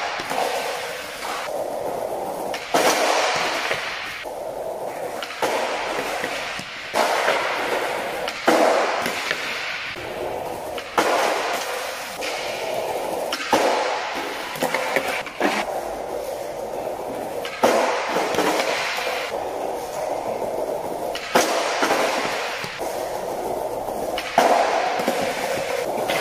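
Skateboard wheels rolling over tiled paving, broken by repeated pops, board slaps and scrapes on a low wooden ledge as frontside noseblunt slides are tried.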